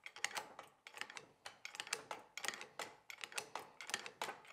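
Light mechanical clicking, a few irregular clicks a second, from a hand-worked mechanism being operated slowly.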